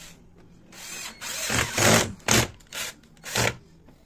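Cordless drill-driver running in several short bursts, driving screws to fasten a strike plate into the balcony door frame.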